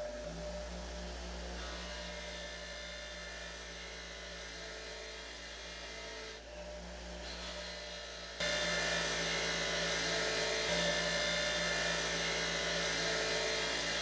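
Bench grinder motor running with a steady hum while steel wrench parts are held against its spinning wheel, giving a scrubbing, rubbing noise. The noise steps up louder about eight seconds in, as the work is pressed harder to the wheel.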